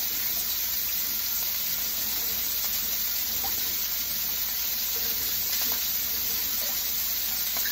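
Steaks sizzling steadily as they fry in a pan.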